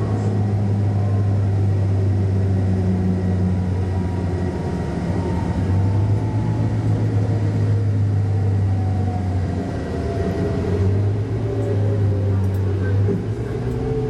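Steady low drone of a tour coach's engine and road noise, heard from inside the cabin while driving, with a faint whine slowly falling in pitch.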